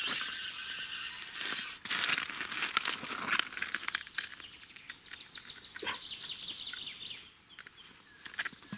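Feeder rod's reel being cranked as a hooked bream is brought in: a dense rustling whir, loudest two to three and a half seconds in, easing off after about seven seconds.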